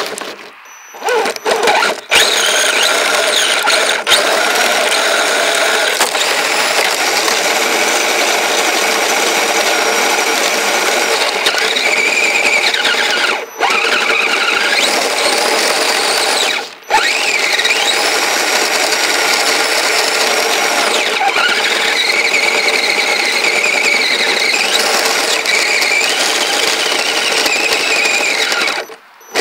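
Kyosho Blizzard RC snowcat's motor and drivetrain whining at a high pitch that rises and falls with the throttle. The whine stops briefly three times (near the start, about 13 seconds in, and about 17 seconds in) before stopping near the end.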